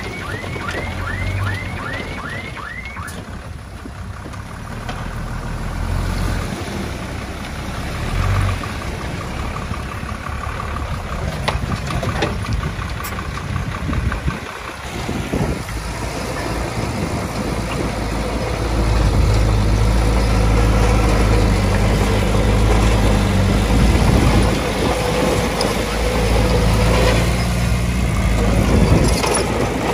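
Heavy earthmoving machine's diesel engine running steadily, then working harder and louder from about halfway through. A quick run of high squeaks comes in the first few seconds.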